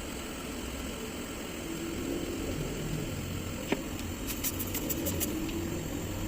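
Steady whir of a small fan or blower with a low hum. A little past the middle there is one sharp click, then a quick run of about eight light ticks.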